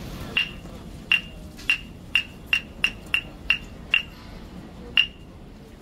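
Hyoshigi wooden clappers struck together, about ten sharp, ringing clacks that come quicker and then spread out again, the last one about a second after the rest. In Japanese puppet theatre this clapping signals that the performance is beginning.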